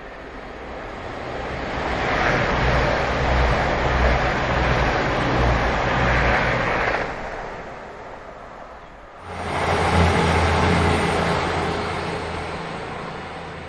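Diesel passenger train approaching and passing close by, its engines humming with a low drone. The sound drops sharply about nine seconds in, surges back suddenly, and then fades as the train runs away.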